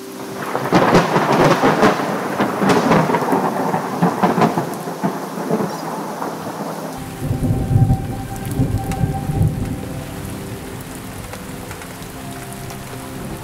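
Thunder in a rainstorm: a close thunderclap cracks and crackles about half a second in and trails off over several seconds. A deep rumble follows about seven seconds in, with steady rain throughout.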